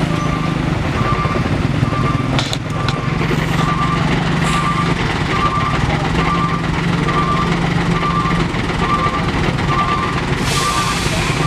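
Heavy diesel truck engine running with a steady low drone, while an electronic beeper sounds evenly a little under once a second, the pattern of a truck's reversing alarm. A sharp knock comes about two and a half seconds in, and a loud hiss starts near the end.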